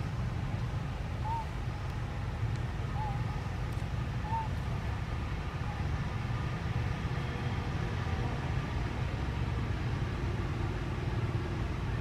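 Steady low outdoor rumble, with three short rising-and-falling animal calls about a second and a half apart in the first half.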